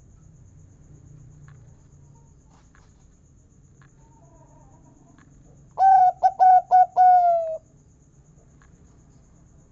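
Local zebra dove (perkutut) singing one song phrase about six seconds in: a quick run of about five short coo notes ending in a longer drawn-out 'kung' note.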